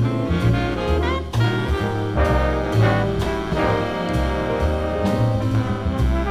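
Big-band jazz ensemble playing: brass and saxophone sections over walking bass, piano, guitar and drums.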